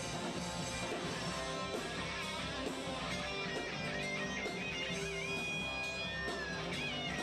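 Live rock band playing an instrumental passage on strummed electric guitars, with a high lead guitar line of bent and held notes coming in about three seconds in.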